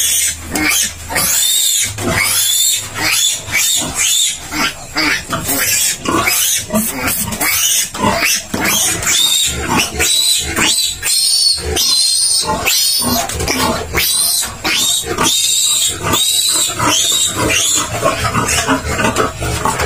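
Newborn piglet squealing loudly in a rapid string of short, high-pitched cries while it is held for tail docking and its iron injection: the distress squeal of a handled piglet.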